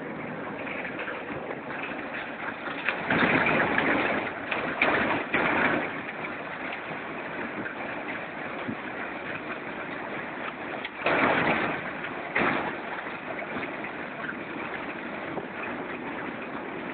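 RM 800 reversible concrete drum mixer running, a steady machine noise. It grows louder and rougher twice, for about two seconds some three seconds in and again about eleven seconds in.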